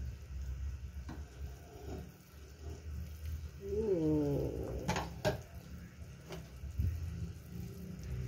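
Glass lid and metal spoon clinking a few times against an aluminium soup pot over a low steady rumble. About four seconds in, a single drawn-out call rises and then falls, lasting about a second.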